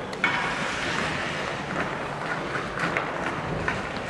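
Ice hockey play on an indoor rink: a steady scraping hiss of skates on the ice, with a sharp knock about a quarter second in and a few lighter stick-and-puck clicks after.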